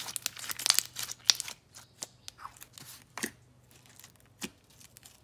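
Freshly activated clear slime with fruit-slice pieces, still full of air bubbles, being squeezed by hand and pressed into a small jar. It makes a dense run of sticky clicks and crackles for the first second and a half, then scattered single pops.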